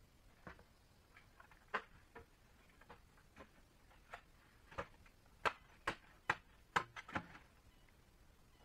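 A string of irregular light knocks and clicks, about fifteen, coming closest together and loudest between about five and seven and a half seconds in.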